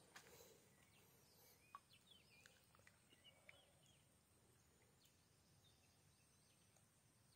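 Near silence: faint outdoor ambience with a few faint bird chirps in the first half.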